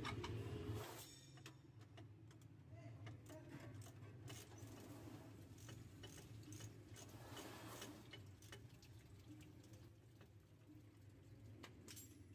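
Faint, scattered metallic clicks of hand wrenches loosening the exhaust bolts, over a low steady hum.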